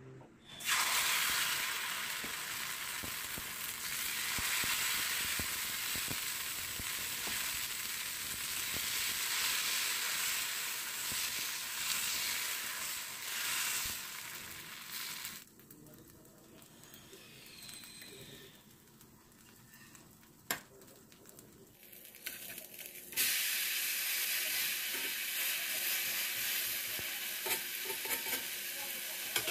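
Uttapam batter sizzling on a hot pan. The sizzle starts sharply about a second in as the batter hits the pan, runs loud while it is spread, dies down to a faint hiss for several seconds, then comes back loud near the end.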